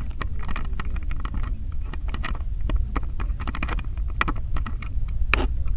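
Wind buffeting the microphone in a steady low rumble, with many short, sharp ticks and knocks scattered through it.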